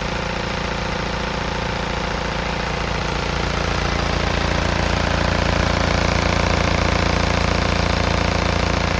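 Diesel engine of a MINI F54 Clubman running steadily, getting somewhat louder and deeper about four seconds in.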